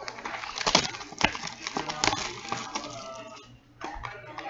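A sealed box of hockey trading cards being unwrapped and opened by hand: plastic wrap and cardboard crinkling and rustling, with many sharp crackles and clicks, then a wrapped card pack handled.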